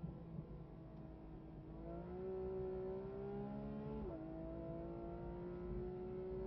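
Porsche GT3 RS's naturally aspirated flat-six heard from inside the cockpit, pulling hard out of a corner: the engine note climbs, drops sharply with an upshift about four seconds in, then climbs again.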